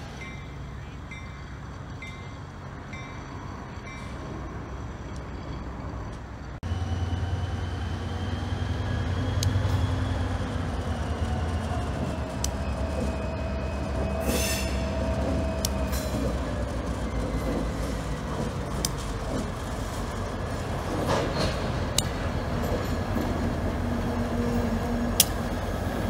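CSX diesel locomotive running as it slowly pulls tank cars and a caboose around a sharp curve, its engine a steady low hum, with wheel flanges squealing in sliding tones and scattered sharp clicks from the wheels on the rails. For the first six seconds a bell rings about once a second; then the sound jumps louder and closer.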